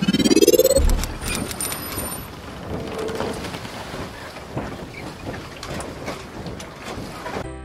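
Intro sound effect: a tone sweeping steeply upward, loudest in the first second, then a rushing hiss full of scattered crackles. A chiming tune starts just at the end.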